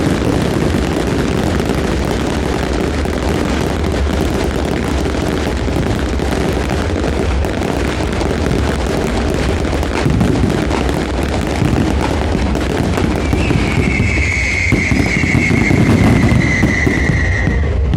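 Fireworks and firecrackers going off in a dense, unbroken barrage of crackling and booms. From about 13 seconds in until near the end, a long high whistle slowly falls in pitch over it.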